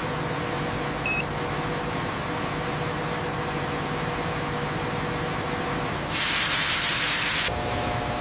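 Industrial machinery running with a steady hum. About six seconds in, a loud hiss of released air or steam lasts about a second and a half and then cuts off.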